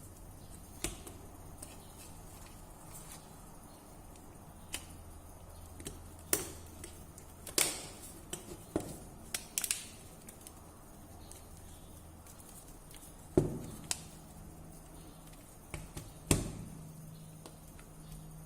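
Scattered sharp clicks and taps, about a dozen at uneven intervals, from small phone parts being handled and worked on by hand, over a faint steady low hum.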